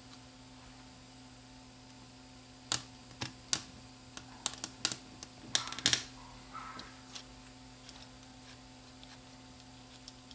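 Light clicks and taps of a small bracket and parts of a JVC HR-D870 VCR tape mechanism being handled and fitted back in place. The clicks come singly and in small groups through the middle, loudest in a quick cluster about six seconds in, over a faint steady hum.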